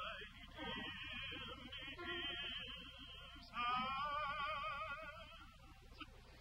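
A woman's contralto voice singing a spiritual in long, held notes with a wide vibrato. The longest and loudest note starts about halfway through.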